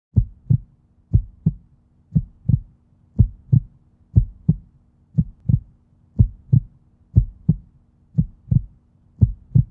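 Heartbeat sound effect: pairs of low thumps in a lub-dub rhythm, about one beat a second, over a faint steady hum.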